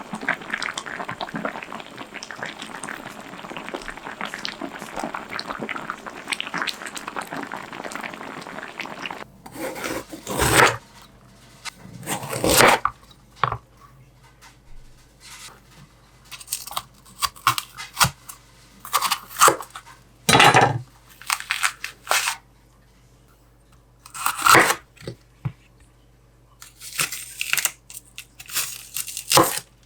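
Home kitchen cooking sounds: a dense crackling of food cooking in a pan for about nine seconds. It stops abruptly, followed by separate short bursts of rustling and tearing.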